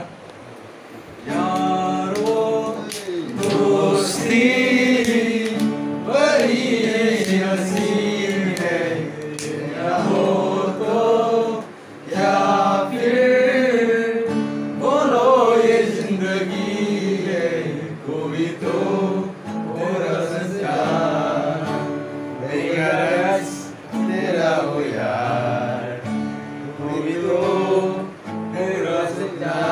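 Men singing a song to a strummed acoustic guitar; the singing comes in about a second in.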